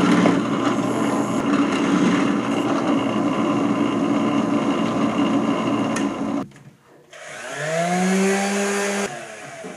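Drill press motor running steadily as the bit drills through a hardwood board. After a cut, an electric palm sander spins up with a rising whine, runs briefly and stops.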